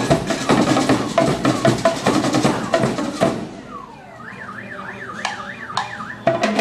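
Marching band drums playing a fast cadence, which breaks off a little over three seconds in. In the gap a high warbling tone rises and falls about four times a second, and the drums come back in just before the end.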